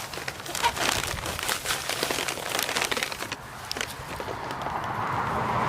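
Dry rustling and crinkling handling noise, a quick run of small crackles for about three seconds, as hands work garlic cloves and soil while planting. A steady rushing hiss swells near the end.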